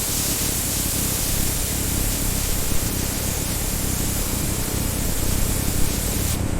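Steady, even hissing noise with no rhythm or break, strongest in the high range.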